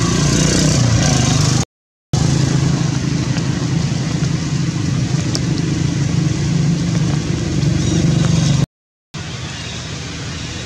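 A steady engine hum with a constant background hiss, cutting out completely for a moment twice, about two seconds in and near the end; after the second break it is quieter.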